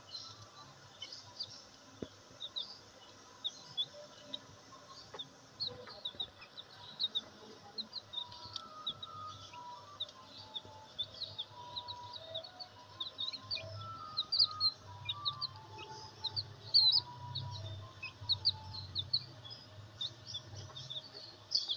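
Young black bantam chicks peeping: a steady stream of short, high chirps that grows busier about seven seconds in.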